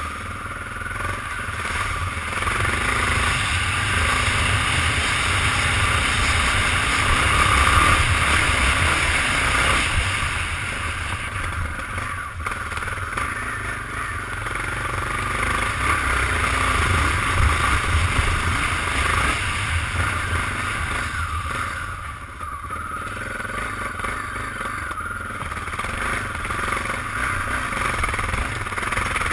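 Motorcycle engine running as the bike is ridden along a gravel dirt track. The level rises and falls with the throttle, with a short drop about three-quarters of the way through.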